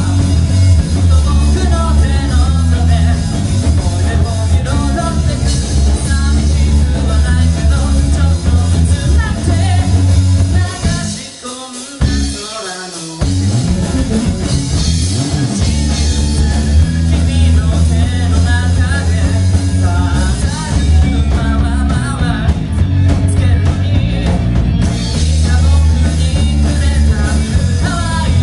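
A live rock band, with electric guitar, bass guitar, drum kit and sung vocals, playing loud with a heavy, boomy low end. About 11 seconds in the bass and drums drop out for roughly two seconds, then the full band comes back in.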